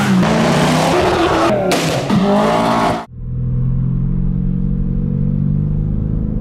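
Car engine revving hard and loud, its pitch rising and falling, cut off suddenly about three seconds in. Then a car engine runs steadily at low revs.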